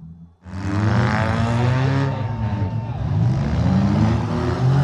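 Demolition derby cars' engines revving, several at once, their pitch rising and falling as they push and smash across the arena. It starts suddenly about half a second in and stays loud.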